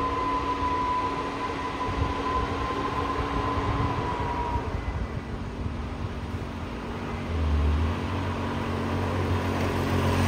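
Diesel engine of a fully loaded Fuso tronton truck running steadily under load as it climbs the hill, with other truck traffic. A higher whine fades out about four seconds in, and a deeper rumble grows louder near the end as vehicles come closer.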